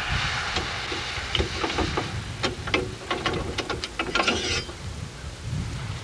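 Metal clanks and clicks from the sheave wheel assembly being worked off a truck's jib, a quick irregular run of knocks through the first four and a half seconds, over a low steady rumble.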